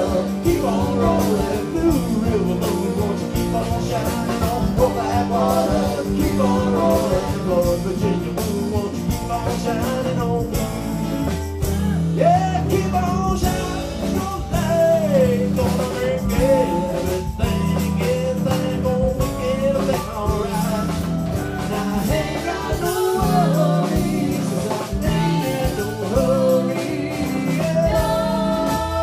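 Live rock band playing with a singer: electric guitars, keyboard and drums, with a gliding vocal melody over a steady beat.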